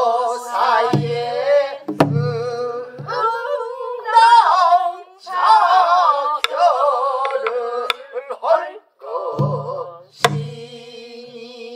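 A group of voices singing pansori together, with wavering, held notes, accompanied by a buk barrel drum. Low thumps from the hand on the drumhead and a few sharp stick strokes on the drum mark the rhythm.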